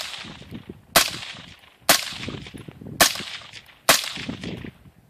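Daniel Defense M4 5.56 rifle fitted with a Yankee Hill Phantom QD suppressor firing four suppressed shots about a second apart. Each is a sharp crack, not silent, followed by an echo rolling back off the valley that dies away before the next shot.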